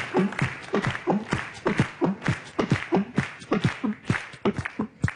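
Beatboxing: vocal percussion, a run of kick-drum-like thumps and snare-like clicks at about three or four beats a second.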